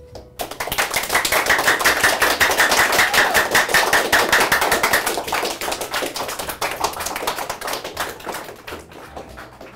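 A loud, fast clatter of many taps a second, with a held high note over its first few seconds, fading off near the end.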